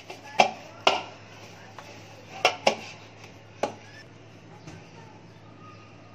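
Kitchenware being handled: about five sharp clinks and knocks in the first four seconds, then quieter, over a faint low steady hum.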